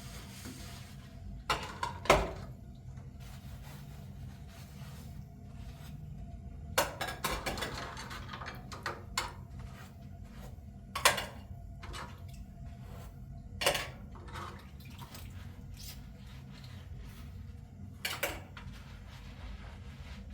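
Scattered knocks and clatters of things being handled, like pots and utensils, over a steady low hum; a longer rattling stretch comes about seven seconds in.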